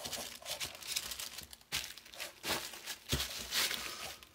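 Tissue paper crinkling and rustling in a run of crackly bursts as a hand rummages through it, with a dull thump about three seconds in.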